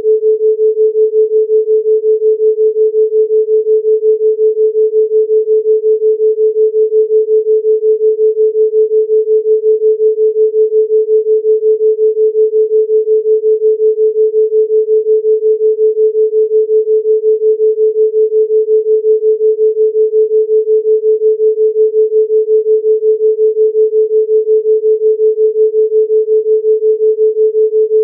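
A pure sine tone at about 432 Hz, held steady, with a fast, even pulsing in its loudness: a theta binaural-beat tone.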